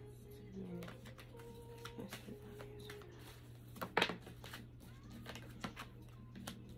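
Tarot cards being shuffled and handled: soft rustling and light clicks, with one sharp slap of a card about four seconds in, over a steady low hum.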